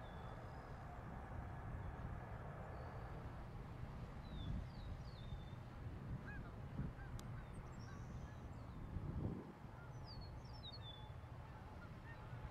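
Faint, steady low rumble of jet airliners on the runway, swelling a few times. Short bird calls, falling in pitch, come over it in small groups every few seconds.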